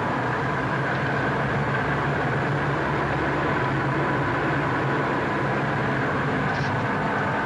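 Car engine and road noise heard from inside the cabin while driving, a steady hum and rush.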